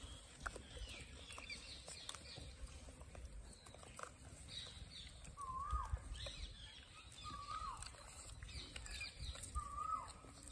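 Animal calls: a short hooked call repeated four times, about two seconds apart, over scattered higher chirps and a low rumble.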